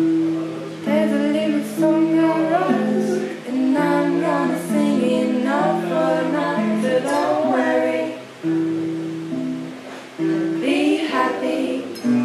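A woman singing a melody to a strummed acoustic guitar, the chords held under her voice, with short breaks between sung phrases.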